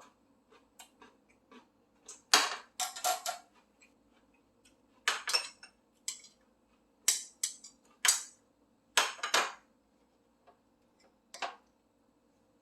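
Crunching bites and chewing of crisp food, close up: about nine short, sharp crunches come irregularly with pauses between them.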